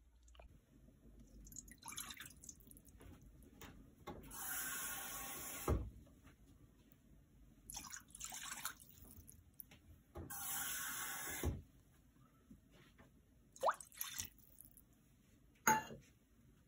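Water poured from a glass measuring cup into a frying pan: two main pours of about a second and a half each, with lighter splashing between, then a couple of sharp clicks near the end.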